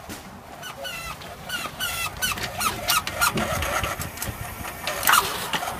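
Battery-powered toy ride-on vehicle running along concrete, its small motor whirring, with clicks and a run of short high chirps repeating about twice a second in the first half.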